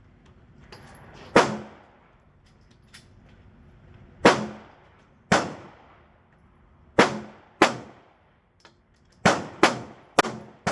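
About eight pistol shots fired at a range, each a sharp crack with a short ringing tail. They come a second or more apart at first, then three in quick succession near the end.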